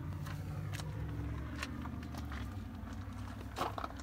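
Steady low rumble with a few light clicks and taps scattered through it, and a short cluster of them near the end.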